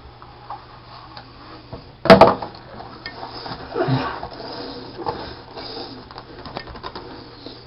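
A sudden loud clatter about two seconds in, followed by scuffling and a few softer knocks, over a steady low hum.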